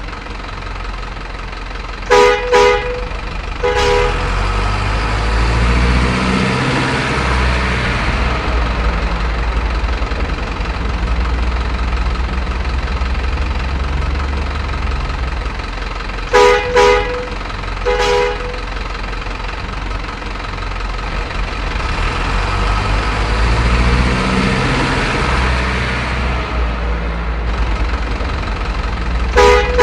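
Simulated diesel truck engine sound from an RC truck, running steadily and revving up twice, with groups of short horn toots: two quick toots and then a third about a second later, three times in all. The sound repeats as a loop about every 14 seconds.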